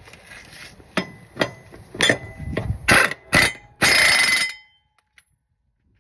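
Pneumatic impact wrench fitted with a 15/16 socket, hammering in a few short bursts and then one longer burst, tightening a mower blade bolt. Light clicks of the socket seating come before the bursts, and the sound cuts off suddenly.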